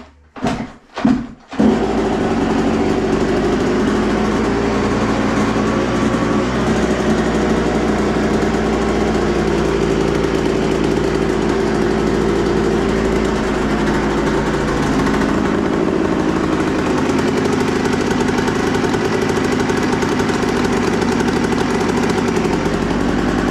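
Yamaha YZ125 single-cylinder two-stroke engine kicked over three times, catching about a second and a half in and then idling steadily without revving.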